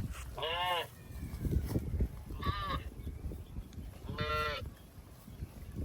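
Cattle giving three short, fairly high-pitched moos, each about half a second long with a rise and fall in pitch, spaced about two seconds apart, over a low, uneven rumble.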